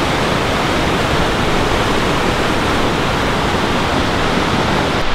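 Fast-flowing mountain river rushing over white-water rapids below the slope: a loud, steady, even rush of water.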